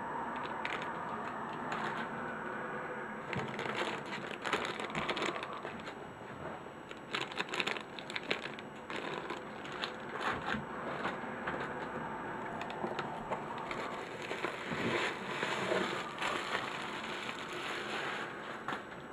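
Cardboard packaging inserts and plastic wrapping being handled and lifted out of a box: continuous rustling, scraping and crinkling with irregular crackles and small knocks.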